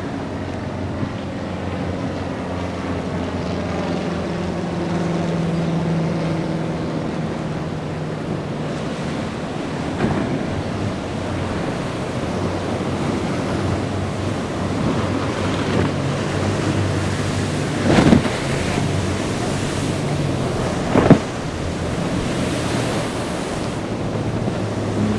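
Waves breaking and wind buffeting the microphone, under the low drone of boat engines running through the inlet. About two-thirds of the way through come two sharp thumps, some three seconds apart, the loudest sounds here.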